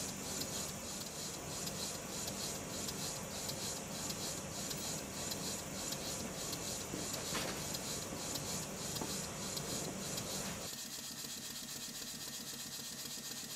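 Stuart model beam engine running on compressed air, with a steady rhythmic beat of exhaust puffs and light mechanical clatter from its slide valve, linkages and flywheel; the valve has just been retimed to admit air at each end of the stroke. The sound gets a little quieter about eleven seconds in.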